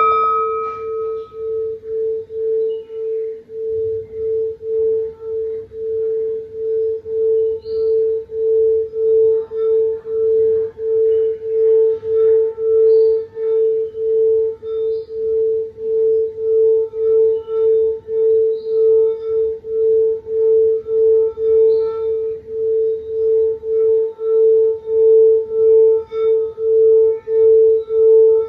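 A meditation singing bowl is struck once and then keeps sounding as one steady tone that pulses about twice a second. It grows slightly louder toward the end.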